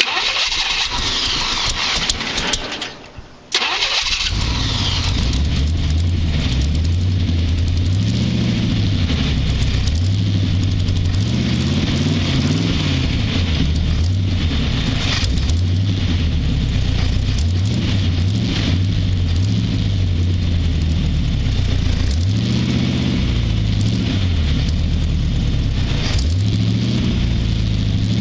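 Hot rod's engine cranked on the starter, then catching about three and a half seconds in and running, its speed rising and falling as the throttle is worked. It is the first start after sitting all winter, fed on gasoline poured down the carburettor throat.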